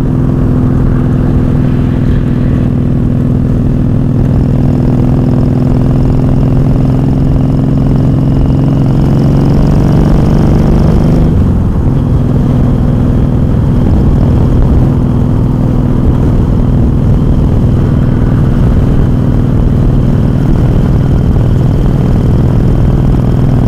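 Kawasaki motorcycle engine running steadily at highway cruising speed, heard from the rider's seat under a steady rush of wind; its pitch dips and settles again about eleven seconds in.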